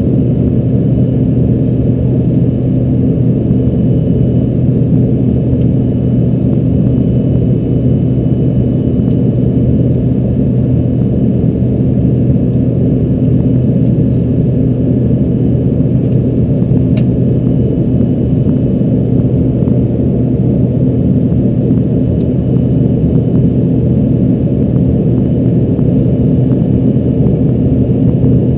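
Steady cabin drone inside an Embraer ERJ-145 under way. Its two rear-mounted Rolls-Royce AE 3007 turbofans and the airflow give a loud, even low rumble with a steady low hum.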